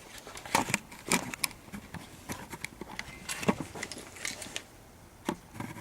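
Irregular clicks and knocks of objects being handled, a dozen or so spaced unevenly, the loudest about half a second in and in the middle.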